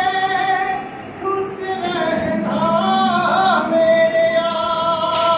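A woman singing a slow song in long held notes. It is plausibly a welcome song.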